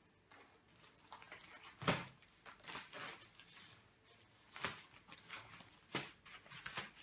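Faint rustling and crinkling as a folded plastic inflatable toy is pulled from its cardboard box and spread out on a table, with a few sharper crackles.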